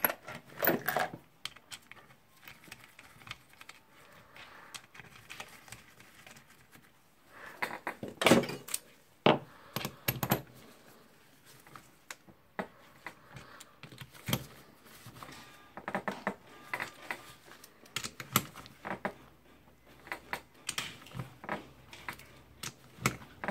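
Nuts being tightened with a hand wrench: scattered metal clicks and clinks, with short runs of quick ticks.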